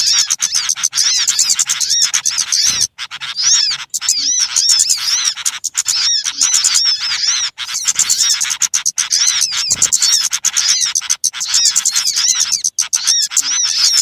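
Dense, noisy chorus of many small birds chirping and twittering rapidly with high arching notes, a bird-lure call recording that barely pauses.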